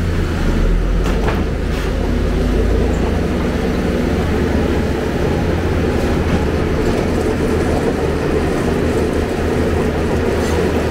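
Hyundai Robex 290LC excavator's diesel engine running close up with a steady low drone as the machine works its boom and digs.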